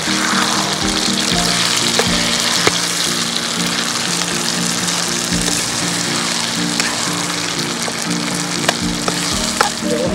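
Rice, sauce and vegetables sizzling steadily in a hot iron kadai while being stirred with a metal spoon, with a few sharp clicks of the spoon against the pan.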